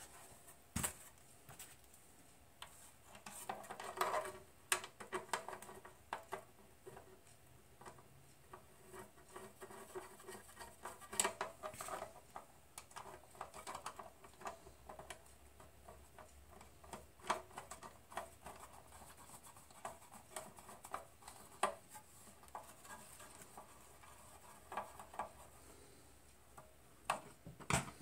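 Sheet-metal parts of a Heathkit T-3 signal tracer's cabinet being handled on a workbench during reassembly: irregular light clicks, taps and scrapes of metal against metal and the bench.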